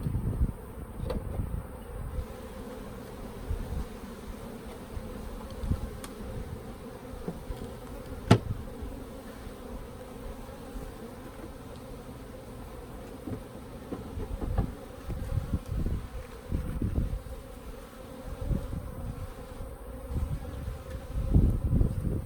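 Honeybees buzzing around an opened hive, a steady hum. Low knocks and rumbles come and go, and there is one sharp click about eight seconds in.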